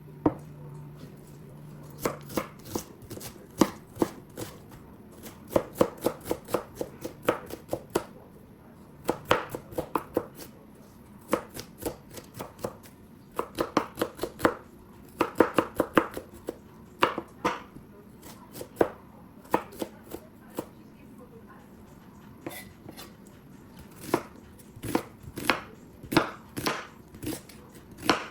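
Knife chopping food on a cutting board in quick runs of strokes with short pauses between them. A low steady hum stops about two seconds in.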